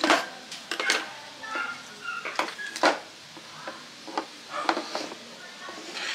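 Irregular hard clicks and knocks from handling an airsoft pistol and its accessories on a table, with a sharper knock at the start and another just before the middle.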